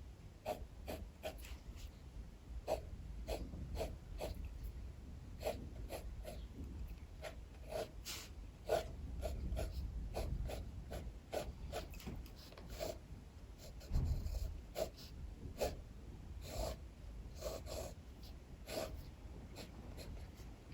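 Short drawing strokes scratching on paper, irregular and about one to two a second, over a low rumble of strong wind that swells in gusts, loudest about fourteen seconds in.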